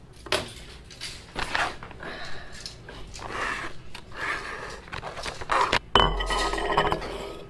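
Crinkling and rustling of a foil backpacking-meal pouch being handled, then about six seconds in a sharp metallic clank and the stainless steel bowl ringing for about a second.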